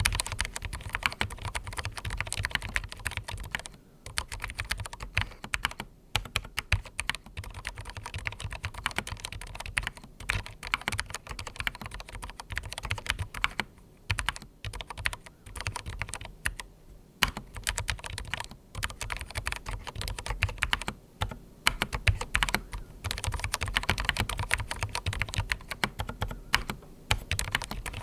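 Continuous typing on a darkFlash DFS99 low-profile mechanical keyboard with linear red switches, foam-dampened inside and fitted with PBT keycaps: a dense run of keystroke clicks, broken by short pauses every few seconds.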